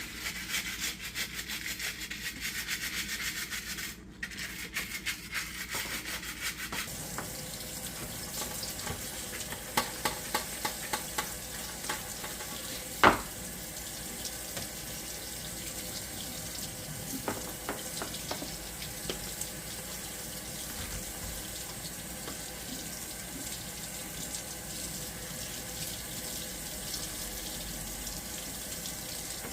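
A brush scrubbing a dishwasher filter for the first several seconds, then tap water running in a sink. There are a few light knocks, and one sharp clack about 13 seconds in is the loudest sound.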